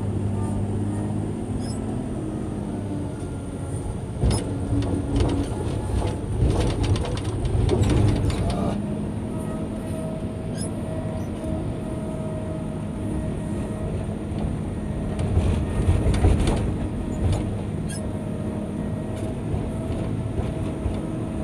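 Caterpillar 160K motor grader's diesel engine running steadily, with louder stretches of clattering and rattling about four to nine seconds in and again around fifteen to seventeen seconds in.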